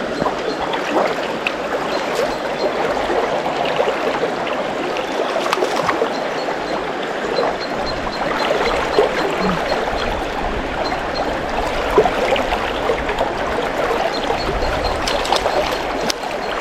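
River water running and babbling over rocks, a steady, fairly loud rushing.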